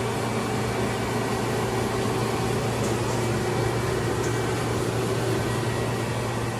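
Steady machinery hum, a low drone with a few held tones, from the CNC lathe's auxiliary units running: the hydraulic power unit, the spindle chiller and the Losma mist collector.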